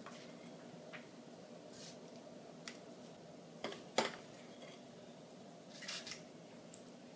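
Squeeze-handle metal ice cream scoop scooping thick muffin batter from a glass bowl and releasing it into paper liners: a few faint clicks and scrapes of the metal scoop and its release mechanism, the sharpest about four seconds in.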